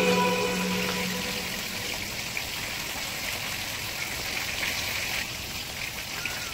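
Pot of sayur asem vegetable soup simmering on the stove: a steady bubbling hiss with small pops. The tail of background music fades out in the first second.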